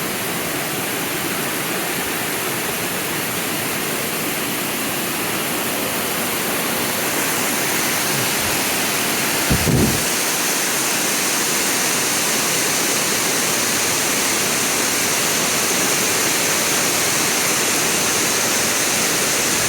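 Roar of Amicalola Falls, a tall cascading waterfall: a steady rushing noise that grows a little louder about seven seconds in as the falls draw nearer. A brief low thump sounds near the middle.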